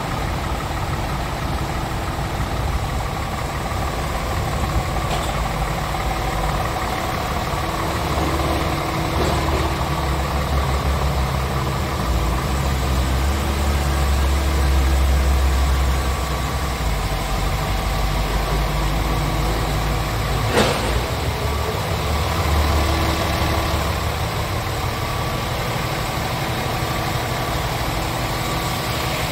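Scania R tractor unit's Euro 6 diesel engine idling steadily, its low rumble swelling a little midway. A single sharp knock about two-thirds of the way in.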